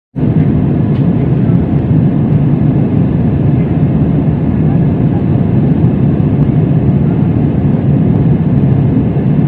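Steady, loud rumbling roar of a jet airliner in flight, the engine and wind noise heard from inside the cabin, starting abruptly.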